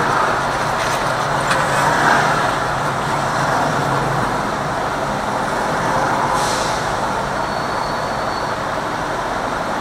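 Steady road and traffic noise heard from inside a moving car: tyre and engine noise with the sound of surrounding city traffic, and a short hiss about six and a half seconds in.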